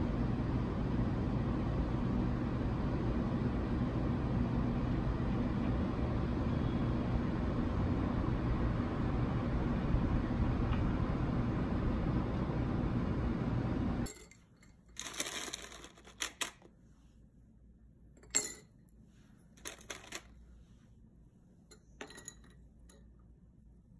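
A steady low outdoor rumble that cuts out a little over halfway through. Then ice cubes clink and rattle against a glass as an iced drink is stirred with a spoon, in a handful of short bursts.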